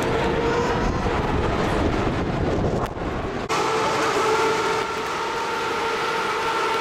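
A field of 2013 Formula 1 cars' 2.4-litre V8 engines running at steady, held revs, heard as a sustained high engine note with a low wind rumble. About halfway through the sound changes abruptly, the rumble drops away and the engine note comes through clearer.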